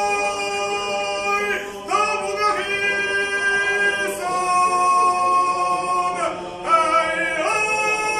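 A small group of men singing a cappella in long held notes, pausing briefly for breath twice.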